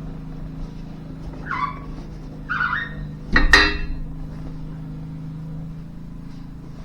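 A single loud metallic clank, ringing briefly, about three and a half seconds in, over a steady low hum.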